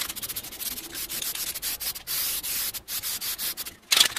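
Aerosol can of high-temperature spray paint hissing as it is sprayed onto the grill cart's metal frame, in quick uneven pulses with short breaks about two seconds in and near the end, then a louder burst.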